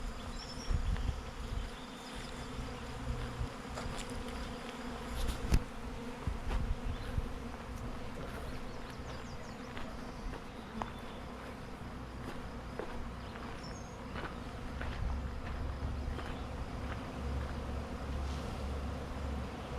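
Honey bees from a swarm buzzing in a steady hum, with a few low thumps in the first several seconds and a low rumble later on.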